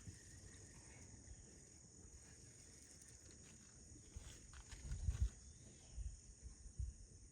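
Steady high-pitched insect buzz over a quiet outdoor background, with irregular low thumps and rumbles close to the microphone from about four seconds in, the loudest around five seconds.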